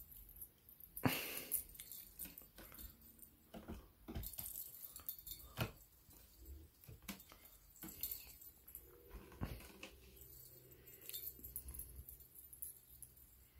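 Kitten playing with a feather wand toy: irregular rustles, taps and light thumps as it grabs and bats the feathers and paws at the carpeted cat tree, the loudest about a second in.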